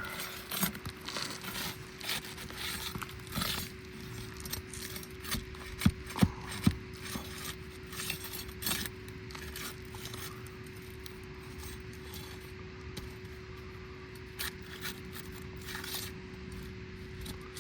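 Hand tools scraping, rubbing and prying at asphalt 3-tab roof shingles, with scattered clicks and three sharp knocks about six seconds in. A steady hum runs underneath.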